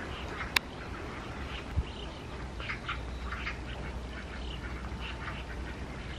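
Domestic ducks quacking in a run of short, repeated calls, with a sharp click about half a second in.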